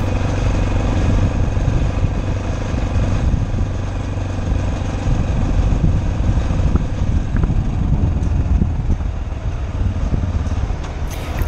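Motorcycle engine running steadily at low speed through town, with wind rumbling on the microphone.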